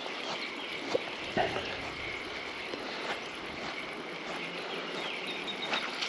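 Spinning reel being cranked steadily, winding in line with a small smallmouth bass hooked on the other end, over a steady background hiss, with a few faint clicks.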